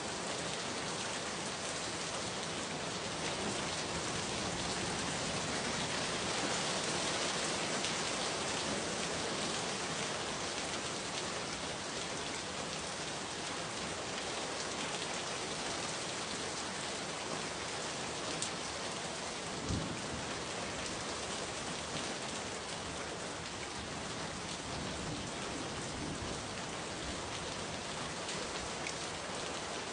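Steady rain falling, an even hiss, with a few sharper drop hits, the strongest about two-thirds of the way through.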